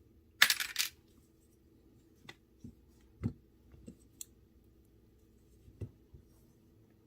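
Small metal parts clinking and jingling briefly about half a second in, like loose screws or hardware dropped onto a hard surface, followed by a few light clicks and taps of handling.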